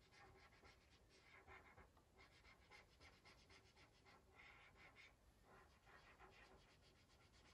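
Very faint felt-tip marker strokes on paper, short scratchy back-and-forth rubs repeated in runs while the petals are colored in.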